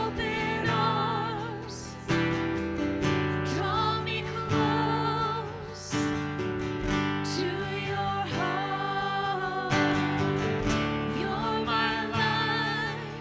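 Worship music: strummed acoustic guitar with sustained chords under a wordless or unclear sung melody with vibrato.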